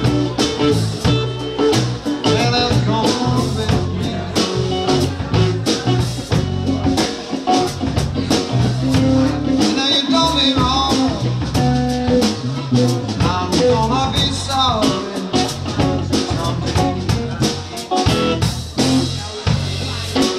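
Live blues band playing: electric guitars over a drum kit keeping a steady beat, with bending lead lines.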